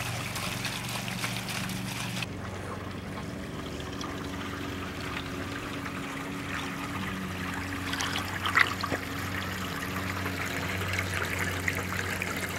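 Water trickling and splashing steadily, with a short knock about two-thirds of the way through.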